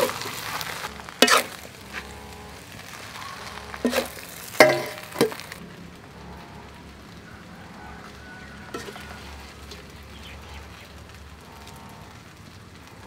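Metal ladle knocking against a wok and a metal serving plate as stir-fried glass noodles are scooped out, a handful of sharp clanks in the first half, over a faint sizzle from the wok that thins out about halfway.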